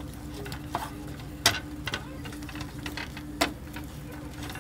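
A few sharp clicks and taps from handling cooking things at the stove, the loudest about a second and a half in and near the end, over a steady low hum.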